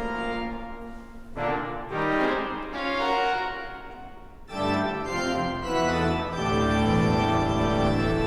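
Organ playing sustained chords that change every second or so, thinning out briefly about four seconds in, then coming back fuller with deep bass notes held to the end.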